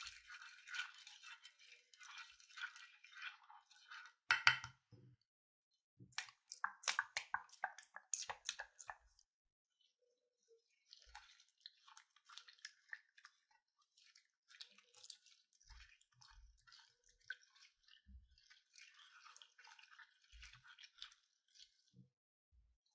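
Plastic spoon stirring wet slime full of sequins and glitter in a glass dish: soft squishing and crackling, with a run of sharper clicks from about four to nine seconds in and a short pause after it.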